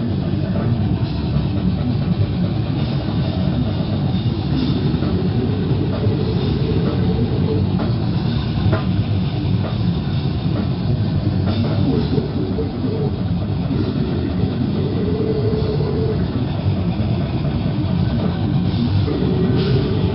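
Death metal band playing live: loud, dense electric guitar and drum kit.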